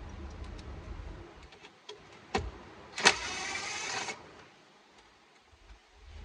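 Hand tool work on the car's dash trim while undoing T20 Torx screws: a sharp click, then about a second of loud rasping whirr that starts and stops suddenly, with low handling rumble around it.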